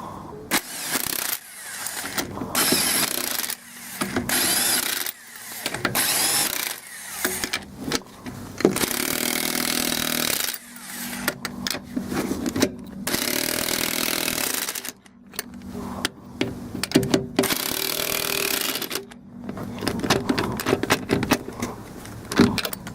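A power tool driving wheel lug nuts, running in about a dozen short bursts of one to two seconds each with brief pauses between them.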